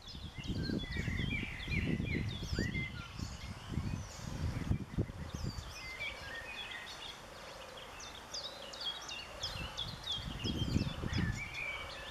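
Small songbirds singing in dense shrubbery: many quick chirps and short rising notes overlapping throughout. Wind gusts buffet the microphone with a low rumble in the first half and again near the end.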